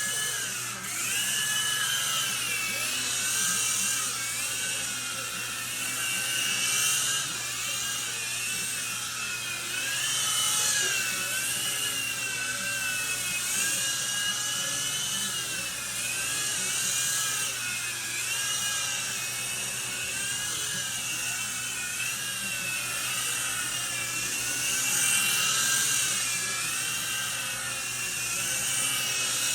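Small infrared toy helicopter's electric motors and rotors whining in flight, the pitch wavering up and down as the throttle changes.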